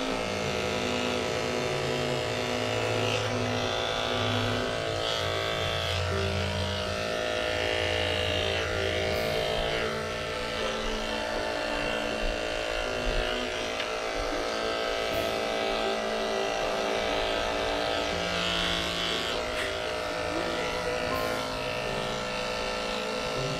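Andis two-speed electric dog clipper running steadily as it shaves through a matted coat, over background music with a shifting bass line.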